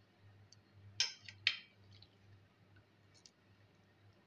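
Metal spoon clicking twice against a glass bowl, about a second in and half a second later, as green jelly is spooned onto custard and fruit. A few faint ticks follow.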